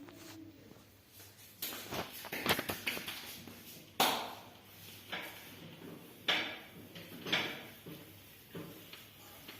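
Hands slapping skin during a massage: a run of irregular sharp slaps about a second apart, the loudest about four seconds in.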